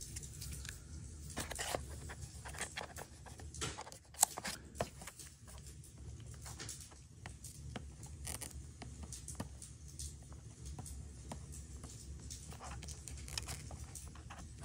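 Faint clicking, tapping and rustling of plastic as protective film is peeled off a GoPro Hero 11's screen, with a sharper click about four seconds in, over a steady low hum.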